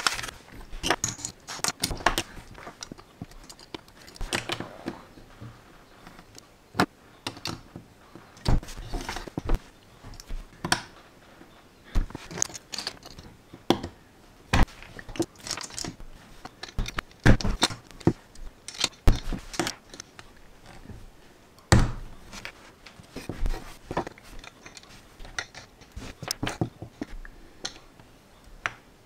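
Plastic LEGO bricks being handled with metal tweezers and pressed together on a tabletop: irregular small clicks, taps and rattles, with a few louder knocks.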